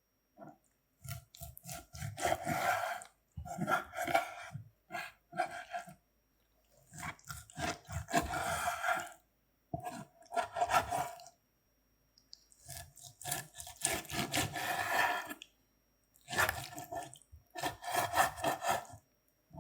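Repeated rubbing and scraping strokes in bursts of one to two seconds with short pauses between them: hands and utensils working on food while duck skewers are made.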